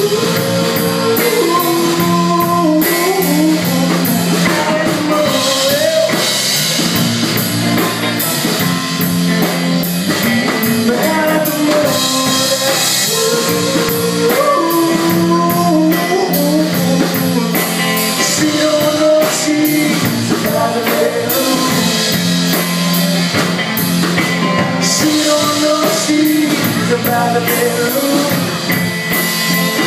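Rock band playing a song: drums and guitar, with a lead melody line bending over the top.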